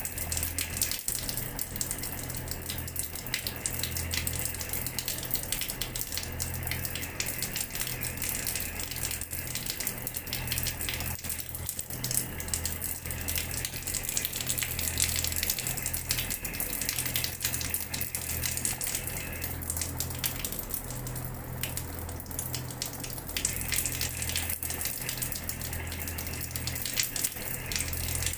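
Water running from a tap and splashing onto a hard floor: a steady spatter full of fine splash ticks, with a low hum underneath that swells and fades.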